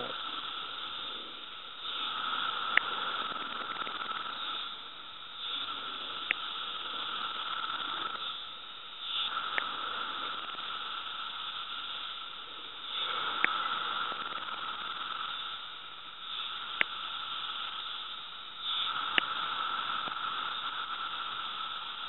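A single Magicicada periodical cicada buzzing at close range, its call swelling louder every three to four seconds. Six sharp finger snaps answer it, mimicking a female's wing-flick to draw the male's call, over a steady background chorus of cicadas.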